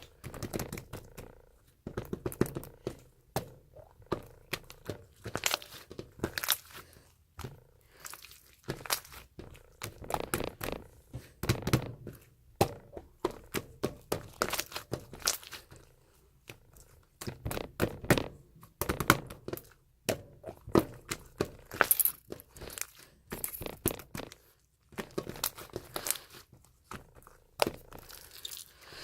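Tough, chewy slime being squished and worked by hand, giving irregular clusters of short sticky clicks and pops with brief pauses between.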